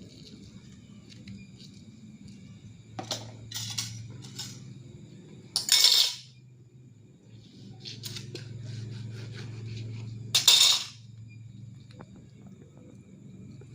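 Fork clinking and scraping against a glass and a charred lime half as the juice is pressed out, with two louder rasping bursts, one about midway and one near three-quarters through.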